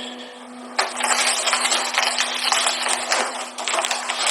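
Packaging being cut and torn open: dense crackling and rustling of plastic and cardboard that starts about a second in, over a steady low hum.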